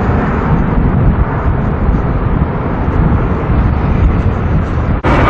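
Jet engine noise of an Airbus A320 climbing away after takeoff, with strong wind rumbling on the microphone. About five seconds in the sound cuts out briefly, and a louder jet engine sound from another takeoff begins.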